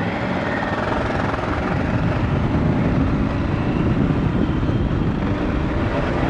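Motorcycle engine running under way with heavy wind rush over a helmet-mounted microphone, the level rising slightly as the bike picks up speed.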